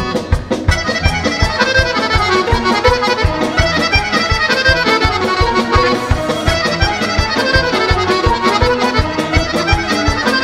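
Instrumental interlude of a Serbian folk band: an accordion leads with fast runs of notes over a steady drum-kit beat.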